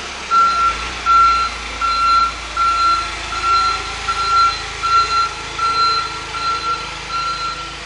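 Yale forklift's reversing alarm beeping steadily, a single tone repeating a little faster than once a second, over the low steady running of its propane-fuelled engine.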